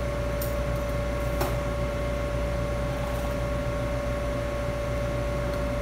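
Steady machine hum with a constant tone over a low rumble, and two faint clicks in the first second and a half.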